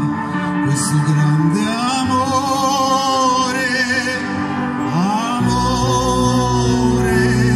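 A man singing long held notes with vibrato over backing music, a deep bass line coming in about five seconds in.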